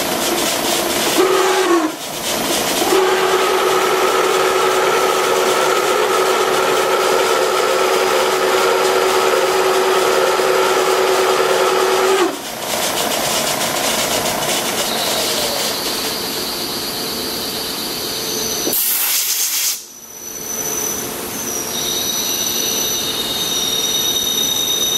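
Milling machine running a .312-inch end mill down into a rust-seized steel action screw in a rifle trigger guard, the cut giving a steady high squeal that holds one pitch for several seconds and then shifts to higher ones. The sound dips briefly twice in the first half, and a short, loud rush of noise comes about three-quarters of the way through.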